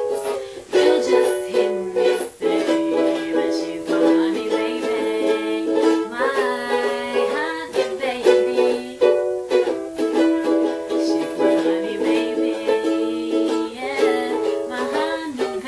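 Ukulele strummed in a steady rhythm, accompanying a girl singing a pop song in a lower key.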